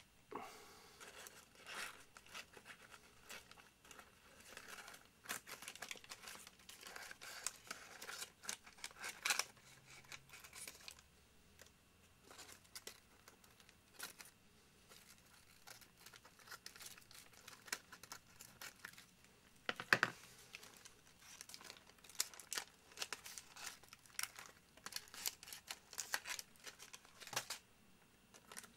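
Thin masking paper and sticky tape being peeled and pulled off a painted plastic scale model: irregular crinkling and tearing of paper with scattered small ticks, and one sharper snap about two-thirds of the way through.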